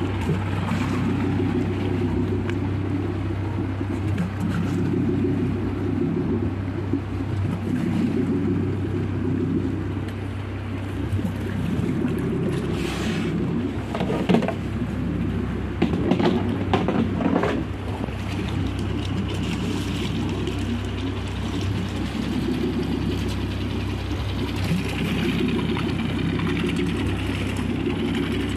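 A boat engine running steadily with a constant low hum, and a few sharp knocks about halfway through.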